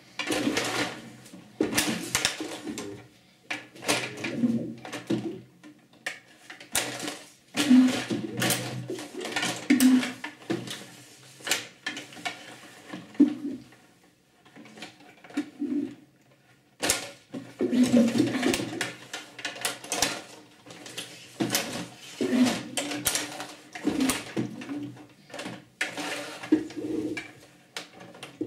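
STIGA Play Off table hockey game in play: plastic players and rods clacking and rattling, and the puck knocking, in irregular bursts of sharp knocks. The motors that drive the robot's rods whirr under the knocks. The play eases off for a few seconds about halfway through.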